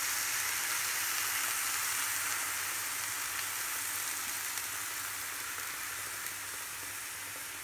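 Chopped onions sizzling in a frying pan as full cream is poured in from a carton: a steady frying hiss that grows gradually quieter as the cream goes in.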